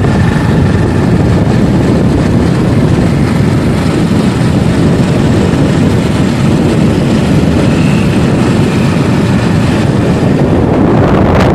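Steady wind rush on the microphone from riding a moving motorcycle, mixed with the bike's engine running. There is one sharp click just before the end.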